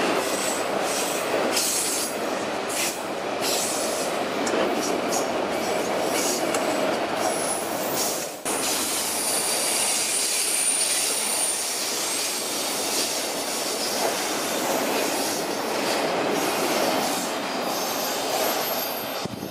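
Autorack freight cars rolling past on the rails: a steady rumble and clatter of wheels with scattered clanks. A thin, high wheel squeal sounds about halfway through.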